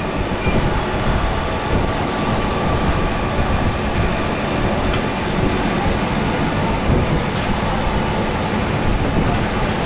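A loud, steady rumbling din with no clear words in it.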